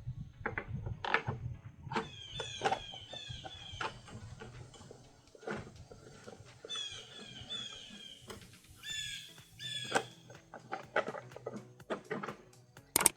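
Irregular clicks, taps and knocks of hands working on a lawn mower's front wheel and its parts. Through them run groups of short, high, falling chirping squeaks.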